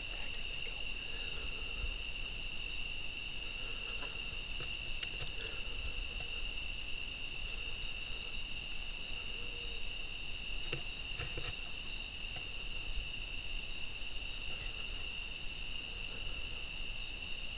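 Steady high-pitched chorus of night insects, crickets trilling without a break. A few faint soft clicks or rustles come near the middle.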